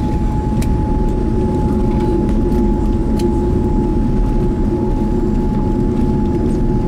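Steady cabin noise inside a Boeing 787 airliner: a loud, even rumble of engines and airflow with a steady whine over it and a few faint clicks.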